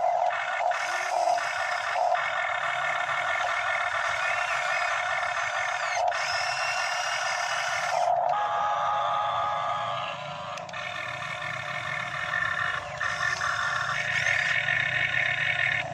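Radio-controlled Hitachi EX60 model excavator working as it digs in mud: a steady whine of its motors and pump, broken by a few short pauses as the controls change.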